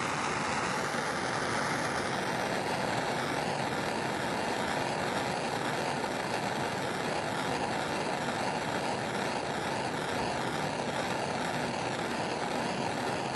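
Handheld gas torch burning with a steady, even hiss, heating a brass mast joint to melt solder into it.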